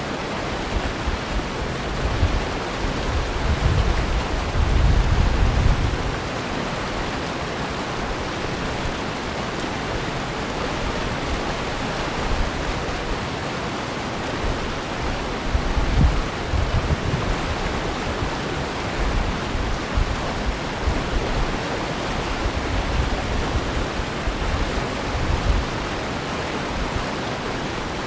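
Steady rush of water over river rapids, with uneven low rumbles on the microphone now and then, strongest about four to six seconds in and again around sixteen seconds.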